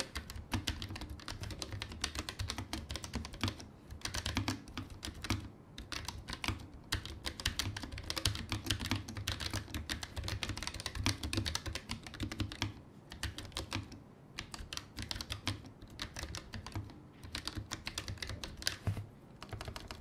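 Typing on a Keychron K1 low-profile mechanical keyboard with brown Gateron tactile switches: a fast, steady run of keystroke clicks with a few short pauses. The typing noise is minimal.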